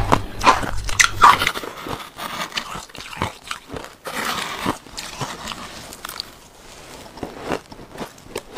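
Biting and chewing packed shaved ice dusted with matcha, in irregular crisp crunches that are loudest in the first second or two and thin out toward the end.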